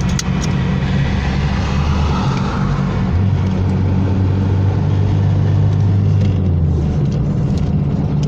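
Car interior noise at motorway speed: a steady low engine and road drone, whose note steps up slightly about three seconds in. A few sharp clicks near the start.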